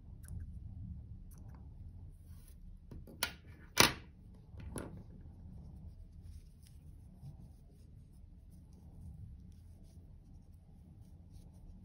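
Small metal scissors snipping yarn ends: a few sharp snips, two close together between three and four seconds in, then soft rubbing as the crocheted yarn rose is handled.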